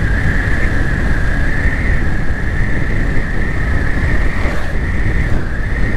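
Yamaha FZS V3 motorcycle cruising steadily at about 60 km/h: heavy wind rumble on the microphone, with a steady high hum over it.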